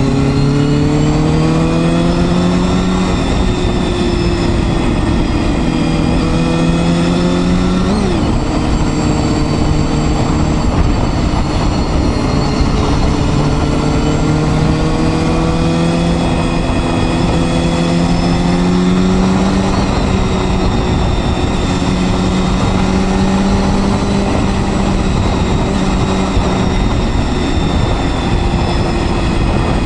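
Honda Hornet 250's four-cylinder engine running under way on a ride, its revs climbing slowly in each gear, with a sharp drop at a gear change about eight seconds in, over a steady rush of wind and road noise.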